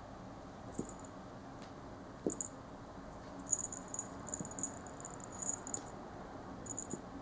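A small bell on a cat's collar jingling as the cat moves: brief tinkles about a second in and a little after two seconds, then a run of quick jingles in the middle and a few more near the end. A couple of soft knocks on the floor come with the first tinkles.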